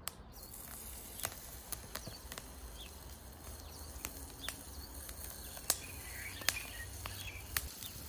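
Shoulder bacon sizzling in a frying pan over a small wood fire: a steady hiss with sharp pops now and then. Birds chirp faintly in the background.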